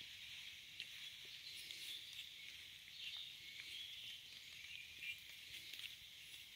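Faint scraping and a few small clicks of soil being worked by hand with a short metal tool, over a quiet steady hiss.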